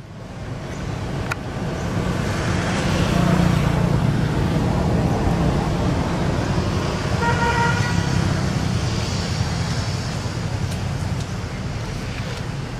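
A motor vehicle passing: a low engine rumble swells over the first few seconds, holds, then fades near the end, with a brief pitched tone about seven seconds in.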